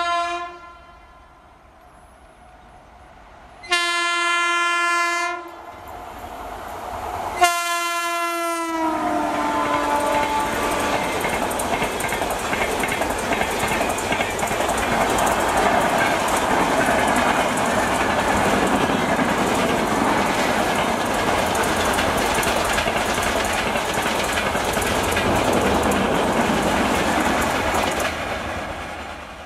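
Indian Railways locomotive horn sounded in two long blasts, the second falling in pitch as the train passes. Then the steady rush of a passenger train's coaches and wheels going past at speed, fading away near the end as the rear of the train recedes.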